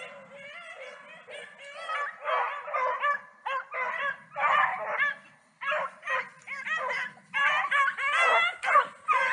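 A pack of beagles baying in overlapping, broken bursts as they run a cottontail rabbit's trail, the hound music growing louder about two seconds in.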